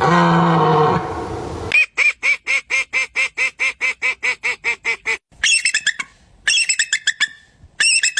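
Animal calls: a low drawn-out call, then a fast run of about five short quacking calls a second for some three seconds, then a few shorter, higher squawks.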